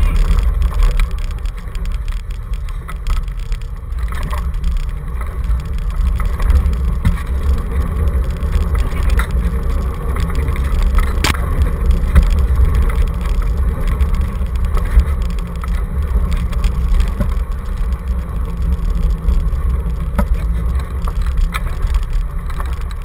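Dog scooter rolling fast over a dirt track, picked up by a camera on its handlebars: a steady low rumble of the wheels and rig, with an occasional sharp knock, the clearest about eleven seconds in.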